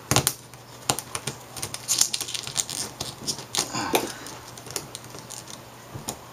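Irregular light clicks and ticks of small plastic and metal parts being handled and pried as the old CCFL backlight lamp is worked loose from the LCD panel's frame.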